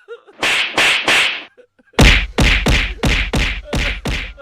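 Three short hissing bursts, then a run of seven sharp slapping hits at about three a second.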